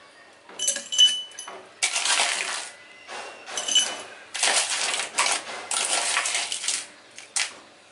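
Crushed ice dropped into a drinking glass, rattling and clinking against the glass in about six separate pours.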